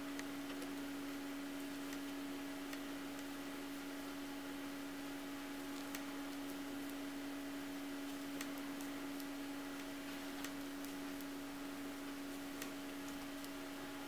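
Occasional faint ticks of knitting needles touching as stitches are knitted, a couple of seconds apart, over a steady hum.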